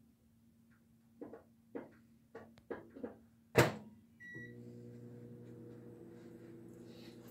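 Microwave oven being set going: a handful of clicks and knocks, one sharp louder click about halfway, a short beep, then the oven's steady running hum for the rest of the time.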